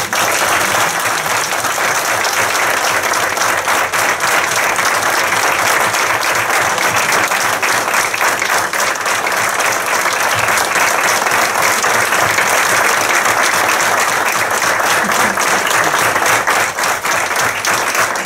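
Loud, sustained applause from a roomful of people clapping, starting abruptly.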